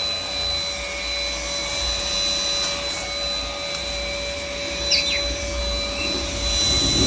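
Rowenta XPert 6.60 cordless stick vacuum running steadily, a constant motor whine over a low rumble, with a brief falling squeak about five seconds in.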